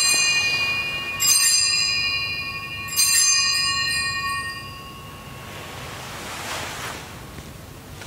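Altar bells rung during the elevation of the host at the consecration: strikes about a second and a half apart, each a bright multi-tone ring that fades away, dying out about five seconds in.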